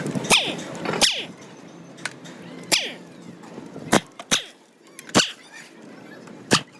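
A dog barking: about seven short, sharp barks at irregular intervals, each dropping in pitch.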